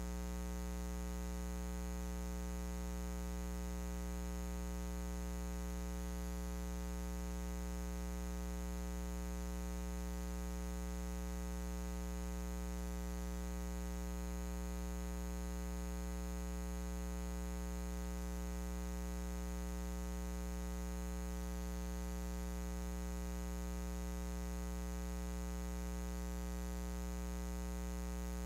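Steady electrical mains hum: a low buzz with many evenly spaced overtones over a faint hiss, unchanging throughout.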